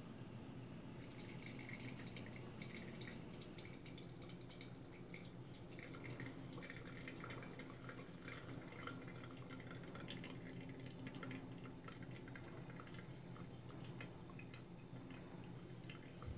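Faint dripping and trickling of hand-drip (pour-over) coffee, many small drips from about a second in, over a steady low hum.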